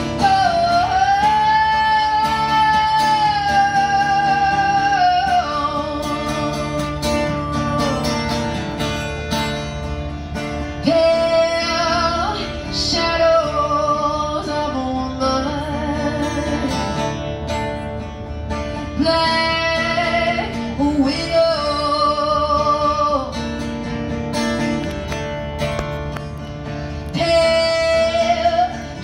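Live music: a woman's voice holding long, wavering wordless notes with pitch slides over guitar accompaniment.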